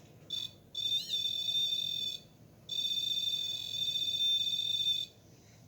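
REM pod's electronic alarm tone, a steady high beep that cuts in and out: briefly near the start, then for about a second and a half, then for about two and a half seconds. It is set off by something coming close to its antenna.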